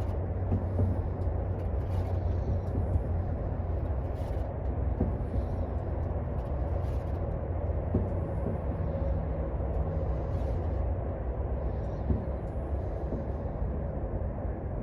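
Farmall tractor engine running steadily, a constant low rumble.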